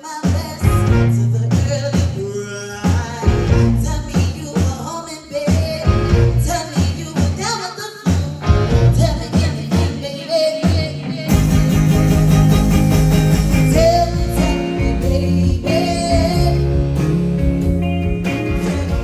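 A live band playing with a singer. The music is choppy with short breaks at first, then the full band comes in louder and steadier about eleven seconds in.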